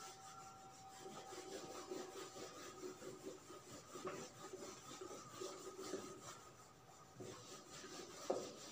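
Whiteboard duster wiping marker writing off a whiteboard: faint, irregular rubbing strokes, with a light knock or two near the end.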